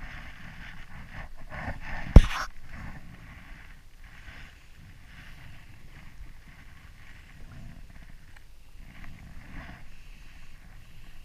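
Handling noise and rushing wind on the microphone while a freshly caught snapper is held and unhooked on a jet ski, with one sharp knock about two seconds in.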